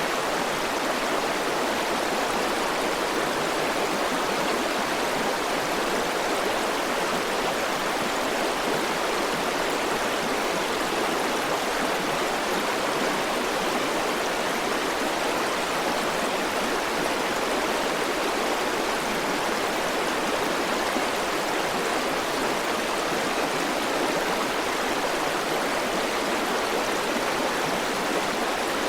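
A river's water rushing and burbling over rocks, a steady, even flow without breaks.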